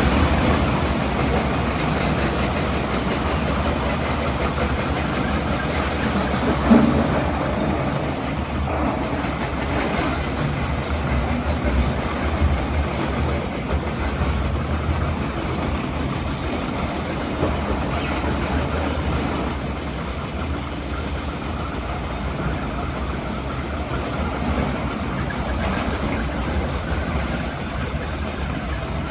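Heavy vehicle engine running steadily with a constant low rumble, and one brief louder knock about seven seconds in.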